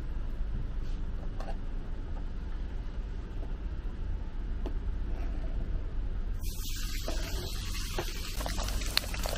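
A steady low rumble, then about six seconds in, sliced pork belly tipped into a hot wok starts to sizzle with a bright hiss: the start of dry-frying the pork for twice-cooked pork.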